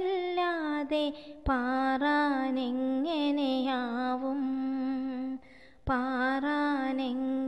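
A woman's voice singing a Malayalam children's poem to a slow, chant-like tune, holding each word on long notes. There is a short pause for breath about five and a half seconds in.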